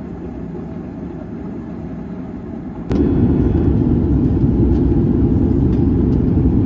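Steady low rumble of a jet airliner in flight, heard inside the cabin. About three seconds in it jumps to a louder stretch.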